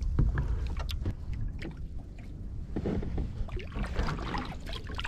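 Sea water lapping and sloshing against a kayak's hull over a steady low rumble, with scattered small clicks and knocks as fishing tackle is handled.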